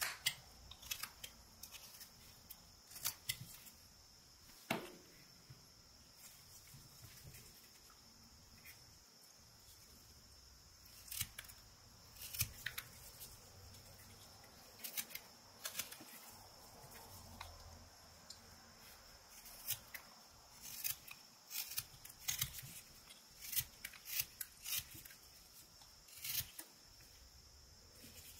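Whittling knife slicing shavings from a block of eastern white pine: short, crisp, irregular cuts and scrapes, often in small clusters, with one duller knock about five seconds in.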